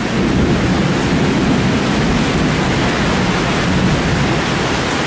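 Heavy rain pouring down steadily in a dense, even hiss.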